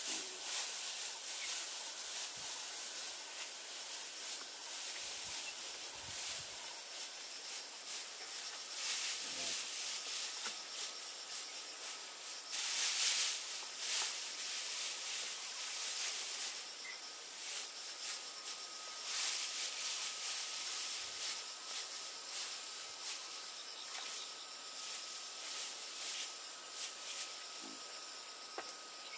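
Steady high-pitched hiss with many brief rustles, a cluster of louder ones about halfway through, and a faint thin steady tone in the second half.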